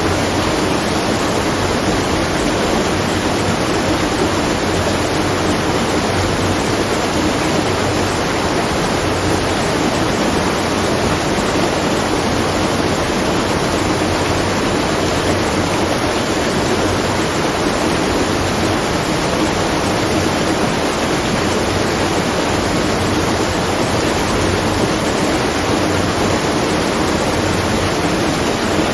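Water at a watermill, rushing and splashing in an unbroken, even stream of noise.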